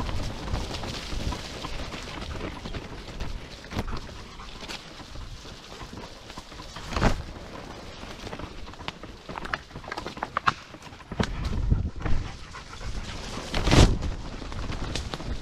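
Mountainboard rolling fast down a wet dirt trail: a steady rough rumble of wheels and wind, broken by knocks and thuds over bumps, the loudest near the end, with the rider's heavy panting breath.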